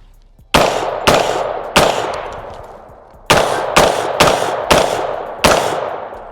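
Gunshots fired in quick succession: three shots, a pause of about a second and a half, then five more, each trailing off in a long echo.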